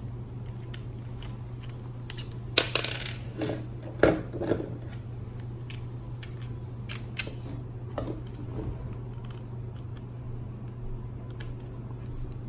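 Small metal screws and a screwdriver clinking and clicking as they are handled, in scattered separate clicks, with a steady low hum underneath.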